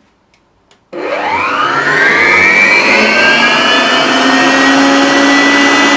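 Cookplus 1001 Quick Chef 1000 W stand mixer's motor run on the pulse setting, whisk turning in an empty bowl. About a second in it starts with a whine that rises quickly over a couple of seconds, then runs on at a steady high pitch.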